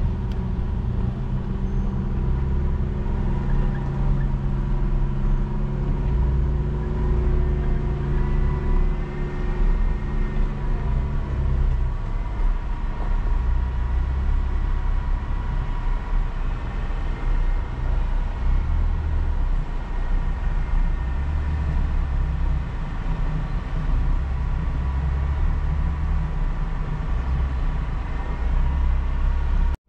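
Off-road vehicle's engine running steadily as it drives a dirt trail, with a continuous low rumble. About twelve seconds in, the engine note changes and its steady hum drops away.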